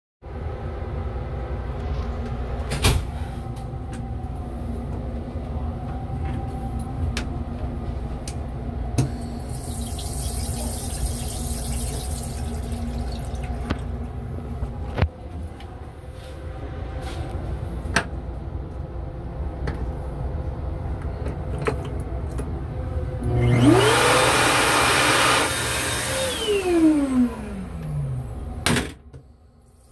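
Steady low rumble of the railcar with occasional clicks and knocks. About 23 seconds in, the chemical toilet flushes: a loud rush of flushing fluid over a motor whine that climbs quickly, holds for a couple of seconds, then winds down over about two seconds, followed by a click.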